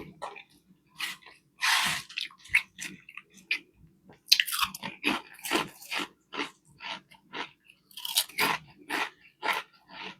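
Close-miked chewing and biting of a fish fillet sandwich: irregular wet smacks and crunches, with a louder burst just before two seconds in and a busier run of crunching from about four seconds on.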